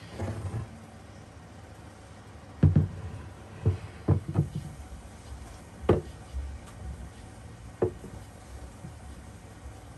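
Irregular knocks and thumps of wood on wood as a low round wooden table is handled and set down on a workbench and things are placed on its top. The loudest thump comes about three seconds in, with a sharp knock near six seconds and a last one near eight.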